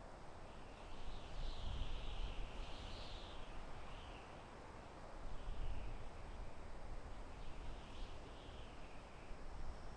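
Soft wind through a forest, swelling in gusts about a second in and again around the middle, with small birds chirping and twittering.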